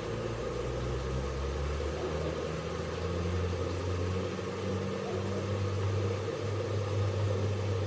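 Diesel pickup engine idling close by, a low rumble whose pitch drifts up and down a little, over the steady hum of the gasifier stove's small blower fan.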